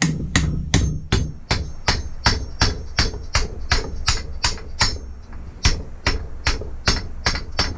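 Steady, even hammer taps, about three a second, driving the pin through the warmed piston of a Lister D engine.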